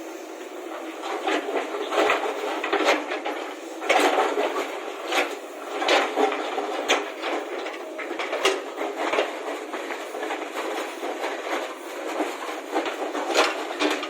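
Irregular clattering and knocking, more than a dozen sharp hits spread unevenly, over a steady rushing noise.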